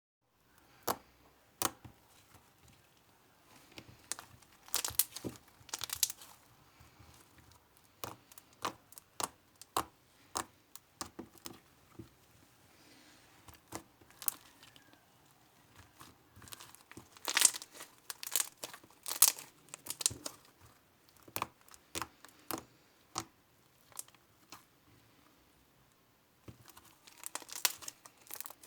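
Slime being squeezed, stretched and poked by hand, giving irregular sticky pops and crackles with several louder bunches of crackling.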